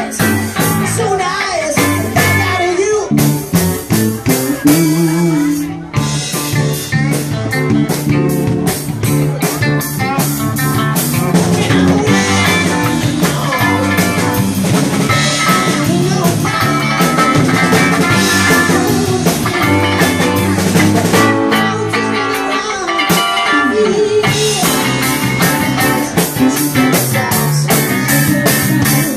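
Live band playing a song on electric guitar, bass guitar and drum kit, with a man singing, the drums keeping a steady beat.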